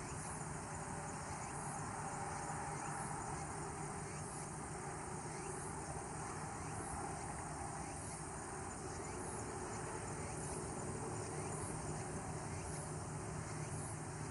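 Insects chirping outdoors, a faint high pulse repeating about every second and a quarter over a steady background hiss and low hum.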